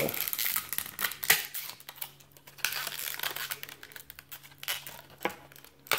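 Clear plastic packaging crinkling and crackling as a broadhead is worked out of its tight plastic sleeve by hand, with a quick run of sharp clicks and rustles.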